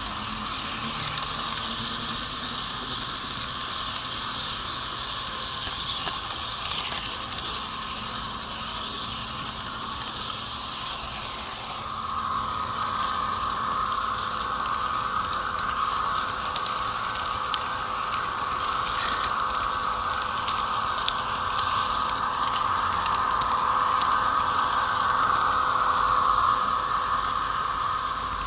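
HO-scale model train running on the layout, with a steady mechanical rattle of wheels on track. A steady mid-pitched hum comes in about halfway through and grows louder as the train draws close.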